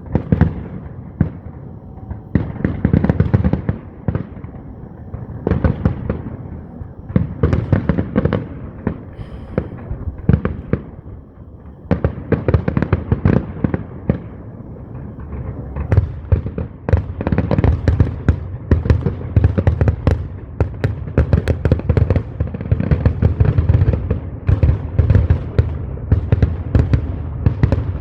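Fireworks going off in rapid, overlapping bangs and crackles during a grand finale, thinning out briefly near the middle and then bursting almost without pause.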